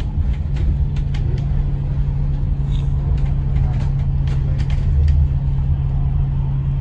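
Bus running along the road, heard from inside the cabin: a steady low engine and road rumble with a constant hum, and scattered light clicks and rattles.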